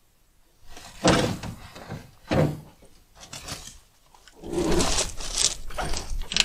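Hard objects being handled: a few separate knocks and thunks, then a longer rough scraping and rattling stretch from about halfway through.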